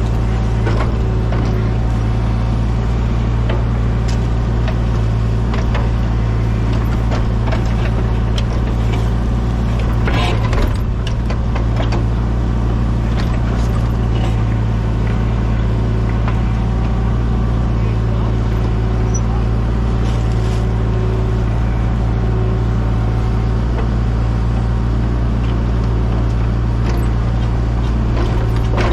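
Excavator's diesel engine running steadily at a constant speed, with scattered knocks and clanks from the machine at work.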